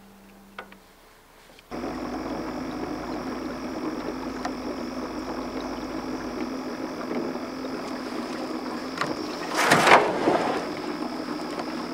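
Boat motor starting suddenly about two seconds in, then running steadily under way, with a low hum and a thin high whine. A loud rushing burst comes about ten seconds in.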